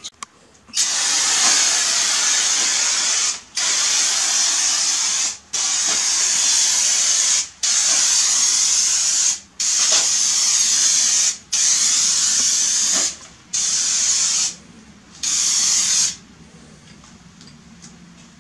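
Rust-Oleum Turbo aerosol spray paint can hissing in eight passes of one to two and a half seconds each, with short breaks between them, then stopping. It puts out a heavy flow of paint, like a fire hose.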